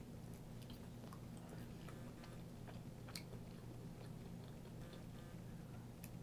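A toddler's faint mouth sounds while eating yogurt off a spoon: small lip smacks and clicks scattered through, with one sharper click about three seconds in, over a steady low hum.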